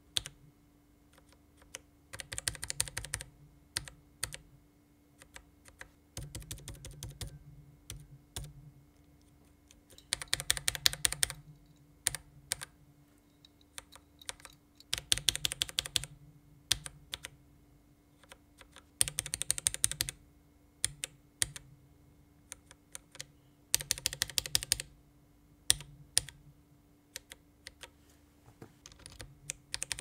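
Sound test of unlubed budget linear mechanical keyboard switches, among them a Kailh Speed Burgundy and a Greetech Red GT02, in a VX5 Pro keyboard. One key is pressed and released in quick runs of clacks lasting a second or two, with slower single presses between the runs. Several different switches are tried in turn.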